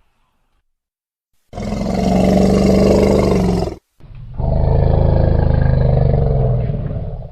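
Elephant giving two long, low roaring calls, the second a little longer, after a short silence.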